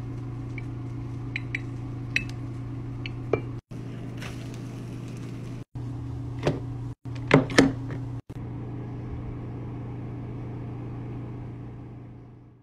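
A steady low electrical hum, with scattered light clicks and taps from handling kitchenware. The sound drops out for an instant several times and fades away near the end.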